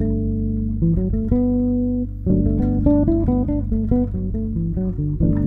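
Electric bass improvising a phrase in fourths from the D major pentatonic over a looped G major chord: a run of short plucked notes with one note held for a moment about a second in, all over the steady repeating chord underneath.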